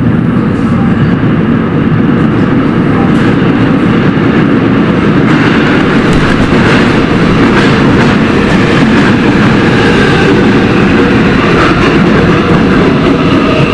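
Seoul Subway Line 7 electric train arriving at an underground station: a loud, steady rumble of wheels on rail that grows brighter as the cars run past the platform from about six seconds in, with some wheel clatter.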